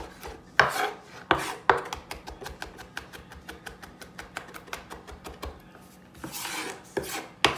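Kitchen knife chopping garlic on a wooden cutting board: a few heavy strokes, then a fast run of light taps, then the blade scraping across the board near the end before one last knock.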